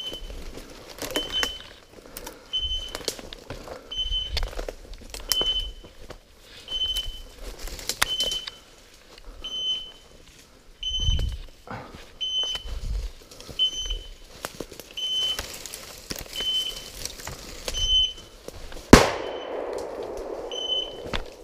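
A bird dog's beeper collar sounding a short, high beep a little more than a second apart, over footsteps crunching through dry leaves and brush. Near the end a shotgun shot goes off with a sharp crack that rings out through the woods.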